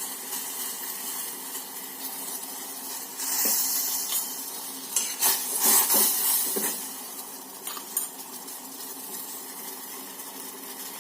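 Pot of kashayam (spiced herbal decoction) boiling on a gas stove, a steady bubbling hiss. From about three seconds in, a metal spoon knocks and scrapes against the pot several times as the brew is stirred.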